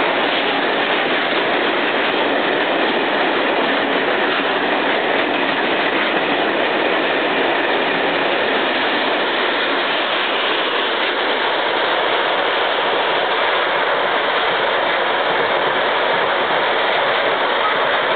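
Freight train of covered grain hopper wagons rolling past close by: the steady, loud noise of the wagons' wheels running over the rails.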